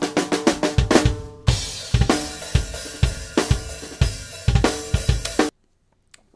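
Unprocessed multitrack drum-kit recording played back: a quick run of drum hits in the first second and a half, then cymbals ringing over a kick-and-snare beat. It cuts off suddenly near the end as playback is stopped.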